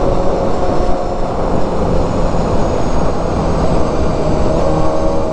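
Motorcycle riding at a steady cruise: a 250cc inline-four engine running at an even note under heavy wind rush on the microphone, with road noise.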